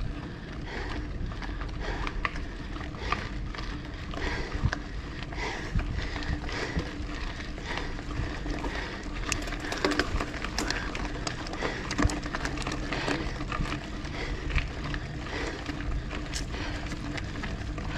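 Bicycle being ridden uphill: steady wind and road rumble on the camera microphone, with frequent small clicks and rattles from the bike.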